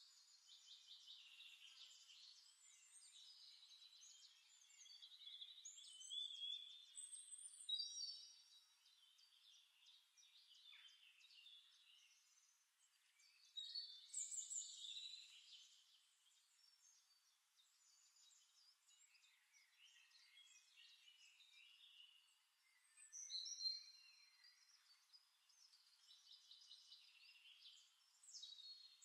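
Near silence, with faint high bird chirps in a few short bursts.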